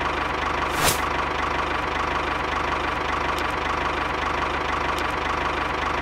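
Tractor engine idling with a steady, fast, even chug, with a short hiss about a second in.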